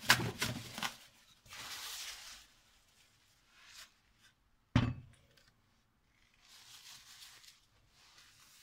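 Kitchen handling noises around a blender jug: a few light clinks, a short scraping rustle, then one sharp knock about five seconds in as the jug is set down on a glass-ceramic cooktop.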